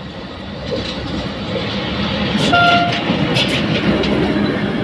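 SM42 diesel shunting locomotive passing close, its engine running and wheels rumbling on the rails, growing louder over the first two seconds. About halfway through a brief high tone sounds, along with a few sharp clicks.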